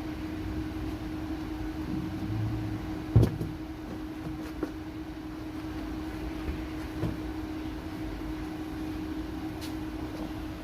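Plastic trim-panel retaining clips on a car's trunk lid being pried out: one sharp pop about three seconds in, then a few lighter clicks, over a steady low hum.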